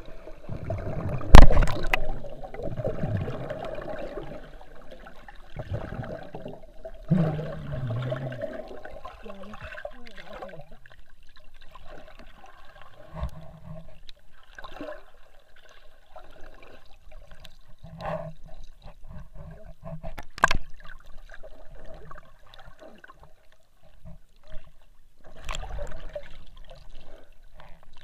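Swimming underwater, heard through an action camera's waterproof case: muffled water movement and gurgling, broken by a few sharp knocks, the loudest about a second and a half in.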